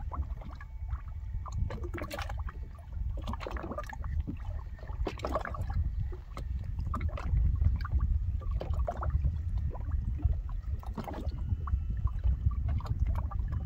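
Water lapping and gurgling against a small boat's hull, over a steady low wind rumble on the microphone.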